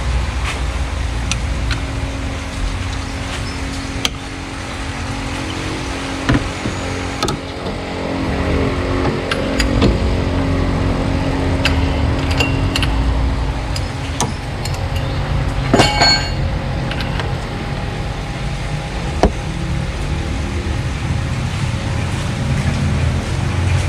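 A vehicle engine runs steadily in the background. Scattered metal clinks come from a hex wrench working the belt tensioner, with the sharpest clink about two-thirds of the way through.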